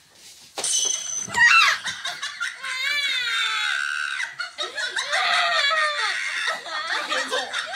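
A woman screaming and wailing in high, wavering cries that break out suddenly about half a second in and go on without a pause, loud sobbing in distress.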